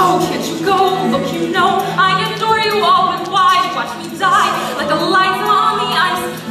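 Musical-theatre song sung live on stage: voices singing melodic lines with vibrato that rise and fall.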